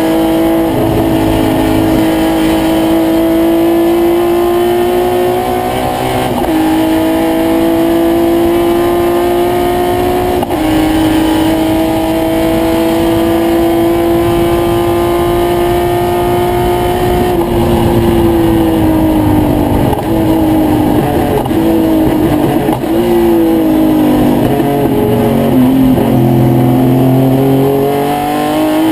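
1972 Triumph GT6's straight-six race engine at full throttle, heard from inside the cockpit. Its pitch climbs steadily and drops sharply at two upshifts, about six and ten seconds in. Later the pitch falls as the car slows and downshifts for a corner, then climbs again near the end.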